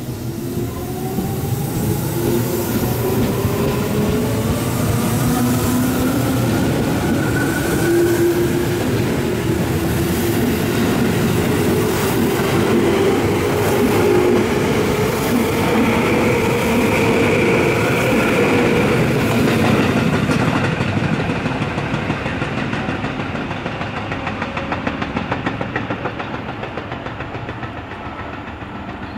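Electric commuter train pulling out of the station: its traction motors whine in several tones rising together in pitch over the first eight seconds or so as it accelerates, over the rumble of the wheels and their clatter across rail joints. The sound holds steady, then fades over the last several seconds as the train draws away.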